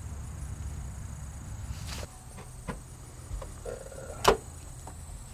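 A combine's access cover being handled by hand: a few light clicks, a short squeak, then one sharp knock near the end as the cover is worked open.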